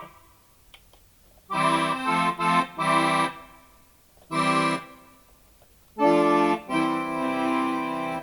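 Roland FR-1x digital V-accordion playing short chords in an accordion voice: three quick chords in the first half, one around the middle, then a longer chord held near the end, with short silences between.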